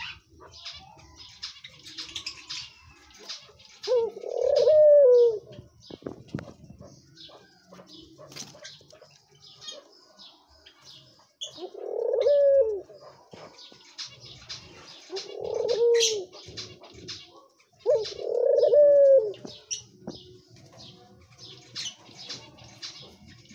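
White dove cooing four times, each coo about a second long, rising and then falling in pitch, over faint high chirping throughout.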